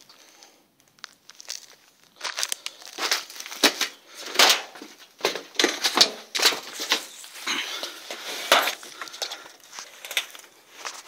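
Leafy branches rustling and twigs crackling as someone pushes through dense brush, in quick irregular crackles. It is quieter for the first couple of seconds, then continuous brushing and snapping.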